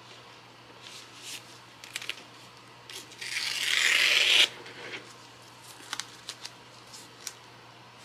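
Painter's tape handled with plastic-gloved hands: small crinkles and rubs as it is pressed onto a wooden tray's edge, with one louder rasp of the tape tearing that builds for over a second and stops abruptly about four and a half seconds in.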